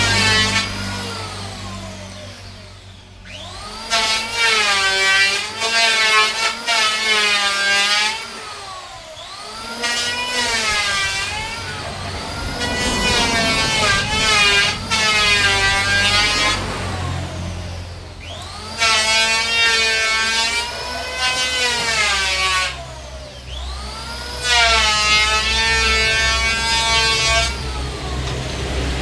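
Electric woodworking power tool cutting wood in repeated passes, about six in all, each a few seconds long. The motor's whine sags in pitch as it bites into the wood and rises again as it frees, over a steady low hum.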